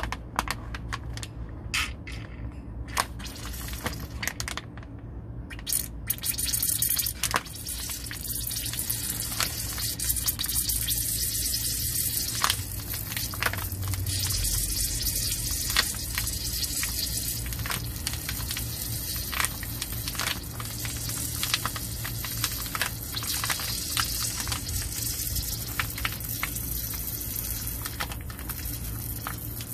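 Gear lube being squeezed from a pack into a Volvo Penta outdrive, squishing and gurgling with many irregular clicks as the lube tries to bubble back out of the fill hole. Under it runs a steady low hum, and a hiss sets in about six seconds in.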